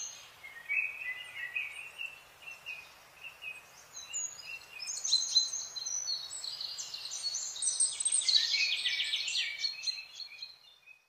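Birds chirping and singing: scattered short chirps at first, then quick high trills in close succession through the second half, fading out near the end.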